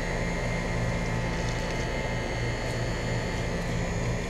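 York central air conditioner's outdoor condenser unit running: a steady hum from the compressor and fan with a pulsing low drone and faint high whine.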